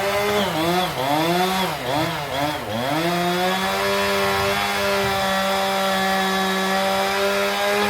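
Two-stroke chainsaw cutting into a tree trunk. The engine note sags and recovers several times over the first three seconds, then holds a steady high pitch for the rest.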